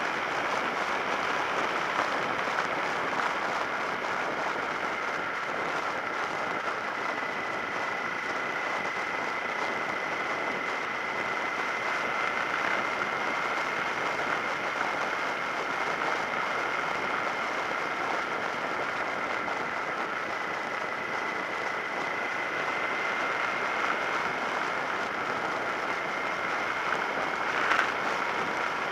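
Steady wind rush over a helmet-mounted action camera as a Suzuki SV650S motorcycle cruises at an even speed, with a faint steady whine under the noise. A brief louder gust of noise near the end.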